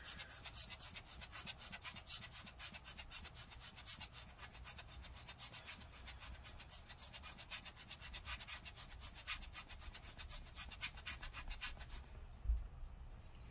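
Rubber hand air blower bulb squeezed over and over, giving a fast, even run of short hissing air puffs, several a second, blowing on freshly super-glued laptop speaker; the puffing stops near the end.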